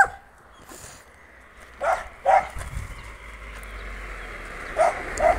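A dog barking: two short barks in quick succession about two seconds in, and two more near the end, over a faint low rumble that grows toward the end.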